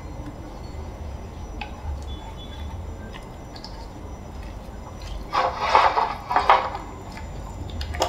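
Silicone spatula stirring a thin cornstarch batter in a coated saucepan: soft liquid sloshing and scraping against the pan, quiet at first, then a few louder strokes from about five seconds in.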